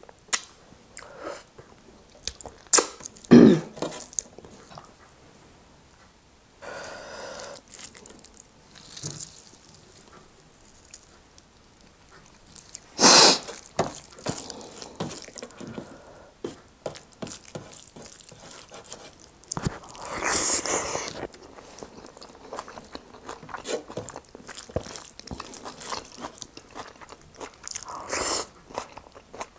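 Close-up chewing and biting of spicy pork trotter and rice eaten by hand: wet mouth sounds and many small clicks and crunches, with a few louder bursts about 3, 13 and 20 seconds in.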